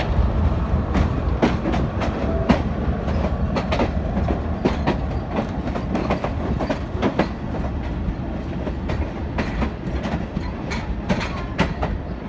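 A moving train's wheels clattering over rail joints: a run of sharp, irregularly spaced clicks over a steady low rumble.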